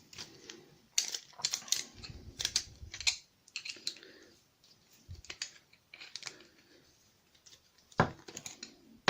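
Screwdriver working at the screws of a Kryptonite padlock to free its removable core: irregular small metal clicks, taps and scrapes, busiest in the first few seconds, with one sharper knock near the end. The screws are stiff, which is put down to thread-locker on them.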